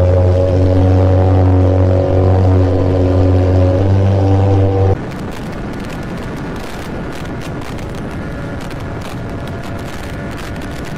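Yamaha XJ6 motorcycle engine running loud and steady in a road tunnel. About five seconds in it cuts off abruptly to a quieter, steady wind rush of a motorcycle at highway speed, its engine faint underneath.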